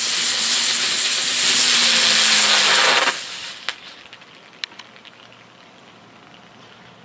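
Ground bloom flower firework spinning on the ground and spraying sparks with a loud, steady hiss that cuts off about three seconds in, followed by a few faint clicks.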